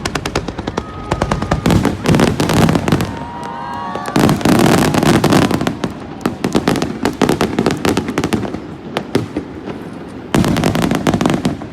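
Fireworks display: dense volleys of bangs and rapid crackling, coming in waves, with the heaviest barrages about a third of the way in and again near the end.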